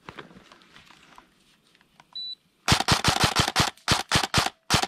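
Airsoft gun firing close by: rapid single shots in three quick strings, about a dozen and a half sharp cracks starting a little over halfway in. It is preceded by faint rustling of gear.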